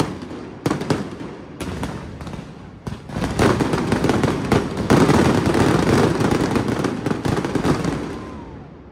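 Aerial fireworks bursting: a few separate bangs in the first three seconds, then a dense barrage of bangs and crackling from about three seconds in, fading near the end.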